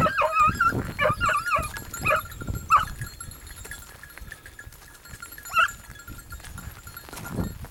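Hunting hounds giving tongue on a hare's trail: a quick run of high, bending yelps in the first three seconds, then a single cry about five and a half seconds in.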